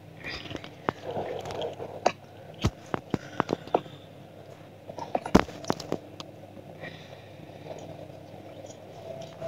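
Irregular clicks and knocks of a hand handling and tapping a device, mostly in the first half, with one sharp knock about five and a half seconds in, over a faint low hum.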